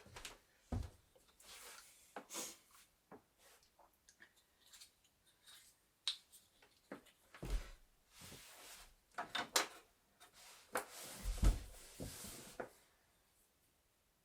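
Wooden bed parts being handled and fitted together during assembly: irregular wooden knocks, clicks and brief scraping, with heavier thumps about a second in, about halfway and at about three-quarters of the way through.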